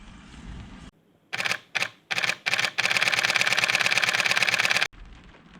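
Camera shutter firing: four single shots, then a rapid continuous burst lasting about two seconds that cuts off suddenly.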